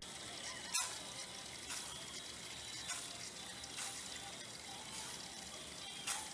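Running water, a steady hiss with a soft splash or surge about once a second.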